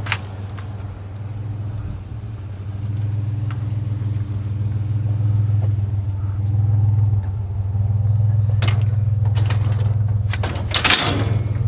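Truck engine idling steadily, with a few sharp metal clanks near the end as scrap bed frames are handled.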